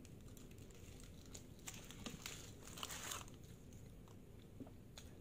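Aluminium foil wrapped around a kebab crinkling faintly as it is held and turned in the hands, densest about two to three seconds in, along with soft chewing.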